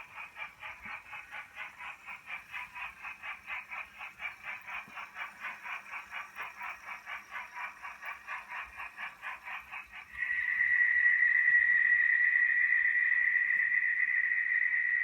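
Sound decoder of a Märklin S3/6 model steam locomotive playing steam exhaust chuffs through its small loudspeaker, about four to five beats a second. About ten seconds in, a louder, steady high-pitched brake squeal takes over and holds.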